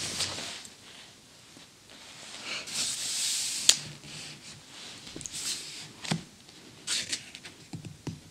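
Hands handling and smoothing the pages of an old paper magazine: soft swishes of paper, the longest about three seconds in, ending in a sharp snap, then a few small clicks and rustles.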